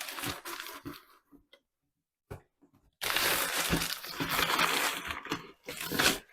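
Cardboard and paper packaging rustling and crackling as parts are pulled out of a box. There is a short rustle, a near-silent pause of about two seconds, then about three seconds of dense crackling and crunching.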